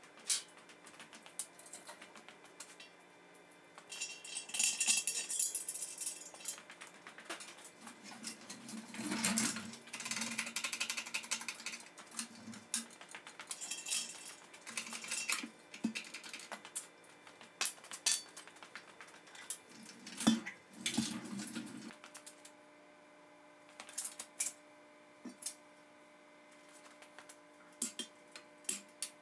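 Steel chain rattling and irregular metal clanks and knocks as a shop crane's chain is hooked to a steel trunnion stand and the stand is lifted, with a few heavier thuds and some longer scraping, clattering stretches.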